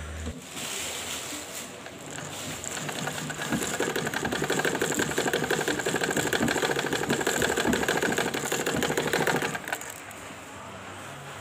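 Old Singer portable sewing machine running, stitching with a fast, even clatter that starts about two seconds in, grows louder, and stops abruptly near the end.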